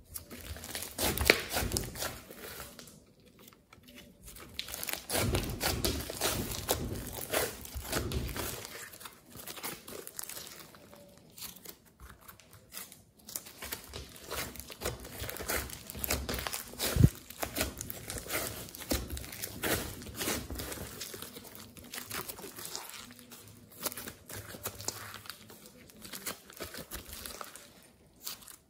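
Thick clay-mixed slime being kneaded, pressed and stretched by hand, giving dense, irregular crackling and tearing clicks. There are short pauses between handfuls, and one sharp snap about halfway through.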